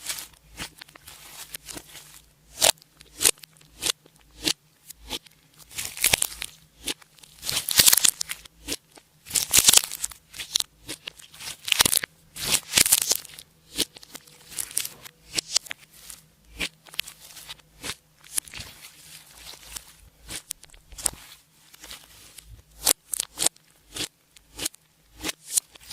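Clear slime being squished and stretched by hand, with rapid sticky clicks and air-bubble pops and several longer crackling stretches.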